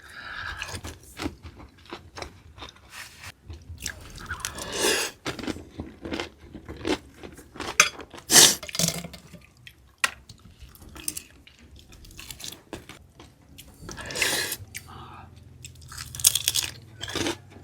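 Close-miked chewing and crunching of food by a person eating, with many small crackles and several louder bites and crunches.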